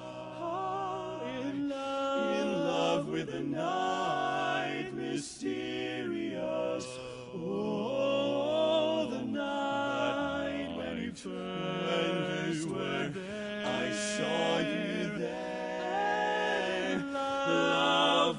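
Male barbershop quartet singing a cappella in close four-part harmony, moving through sustained chords.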